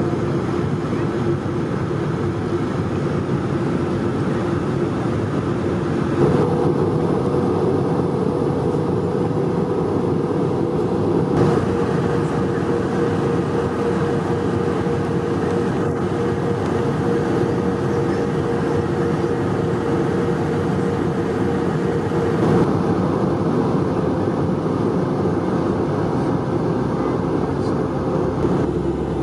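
Steady in-cabin noise of an Airbus A220-300 on descent: a continuous rush and hum from its Pratt & Whitney PW1500G geared turbofans and the airflow past the fuselage, with a few low held tones. A higher steady tone joins about six seconds in.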